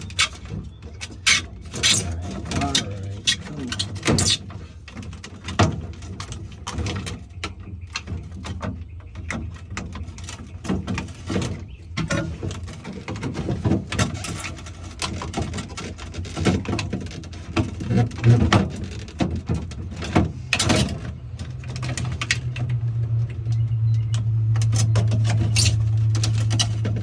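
Scattered clicks, taps and knocks of hands handling refrigerator parts during a control-board swap. A steady low hum comes in about twenty seconds in and holds.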